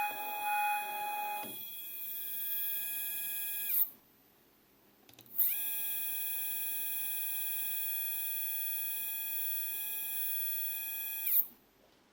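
Stepper motor from a 3D printer's axis, driven from its control board, running with a high steady whine made of several tones. It makes two runs: the first ends about four seconds in, with the pitch dipping as it slows to a stop. About a second and a half later it ramps back up for a run of about six seconds, which again dips in pitch as it decelerates and stops. This is the unusually loud stepper noise under test.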